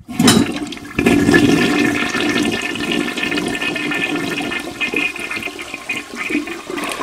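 Toilet flushing: water rushing and swirling down the bowl. It starts suddenly and surges about a second in.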